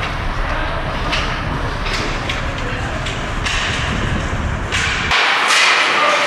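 Ice hockey play: sharp clacks of sticks and puck over the scrape of skates on the ice, several knocks in the first few seconds.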